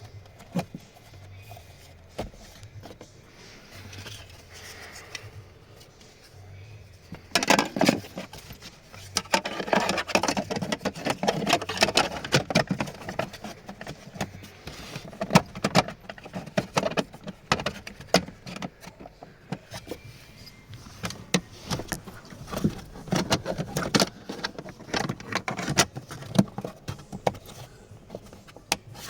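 Cabin pollen filter and its plastic housing being handled by hand: after a few quiet seconds, a dense run of clicks, rattles and rustling starts about seven seconds in and carries on with short pauses.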